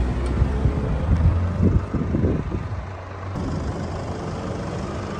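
An off-road SUV's engine runs close by as it drives through the sand, a low hum with louder surges of throttle about two seconds in. The sound then changes abruptly to a quieter, steadier engine hum, with the vehicle further off.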